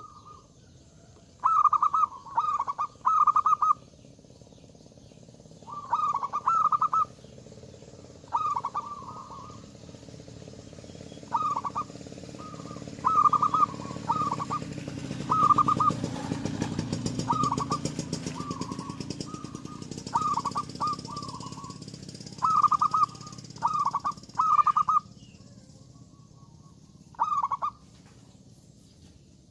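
Perkutut (zebra dove) cooing over and over, loud and gacor (in full song), each phrase a quick run of two or three notes every few seconds. A low rumble swells and fades in the middle.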